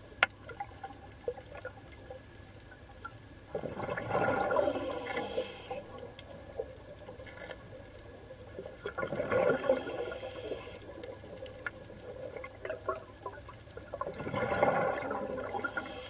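Underwater sound of a scuba diver's exhaled bubbles rushing up in three surges about five seconds apart, with scattered faint clicks in between.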